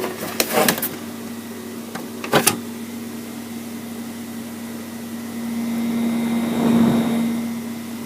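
Small cooling fan in a Commodore 1541 disk drive running with a steady hum, with a few knocks as the drive's case is handled early on and about two and a half seconds in. The hum swells louder for about two seconds near the end.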